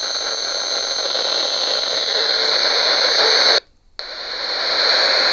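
Static hiss from the RadioShack 12-993 weather radio's speaker on channels with no station coming in. It cuts out for a moment about three and a half seconds in as the channel is stepped, then the hiss comes back.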